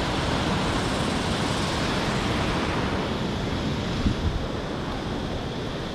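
Ocean waves breaking on rocks below, a steady wash of surf, with wind rumbling on the microphone. A brief low thump about four seconds in.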